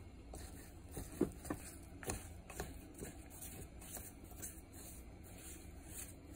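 Spoon stirring thick melted chocolate with almonds and coconut in a bowl: soft scraping with irregular knocks of the spoon against the bowl, the sharpest about a second in.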